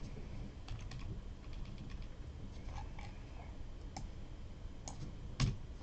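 Scattered, irregular clicks of a computer keyboard and mouse being used to type and edit a text list, with one louder click near the end.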